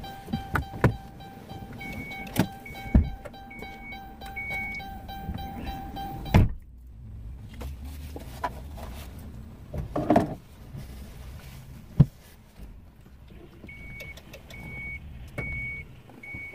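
Van's door-open warning chime beeping about once a second over a steady tone, with knocks and clicks as the driver climbs out. A door thuds shut about six seconds in and the chime stops, then the beeping starts again near the end.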